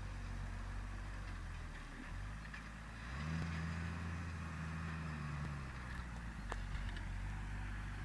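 Deutz-Fahr Agrotron 6.45 S tractor's diesel engine running steadily under ploughing load. Its note steps up and gets a little louder about three seconds in, then drops back near six seconds.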